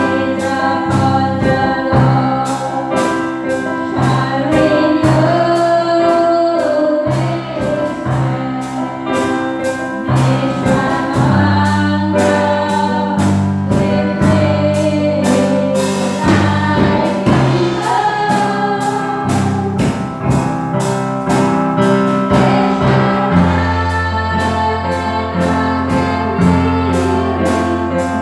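Gospel worship song sung by singers on microphones, backed by drums and keyboard, with a steady beat and sustained bass notes.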